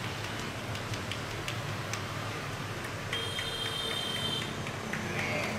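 Street ambience: a steady background of traffic and alley noise with scattered faint taps. A high steady beep-like tone sounds for about a second and a half around the middle.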